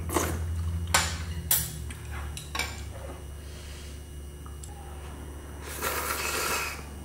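Utensils clinking against a bowl and pot several times as ramyun noodles are served out, then a second-long slurp from the bowl about six seconds in.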